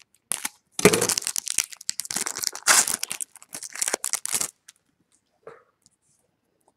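Foil wrapper of a 2016 Bowman Chrome baseball card pack being torn open and crinkled. The crackling starts about a second in and stops after about three and a half seconds.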